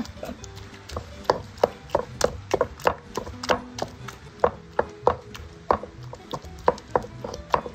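Stone pestle pounding tomatoes, serrano chiles and garlic in a volcanic-stone molcajete, stone knocking on stone through the wet pulp in a quick, uneven run of about three strikes a second. The mixture is being crushed only coarsely, for a chunky martajada salsa.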